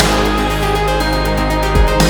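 Electronic backing music with steady sustained tones, a deep bass and a bass hit near the end.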